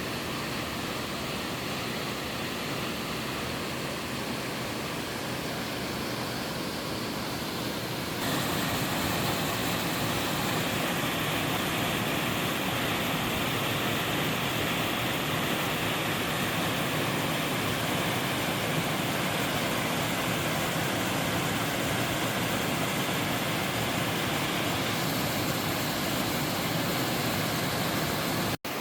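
Five-tier mountain waterfall: a steady rush of falling water. It grows louder about eight seconds in and cuts out for an instant near the end.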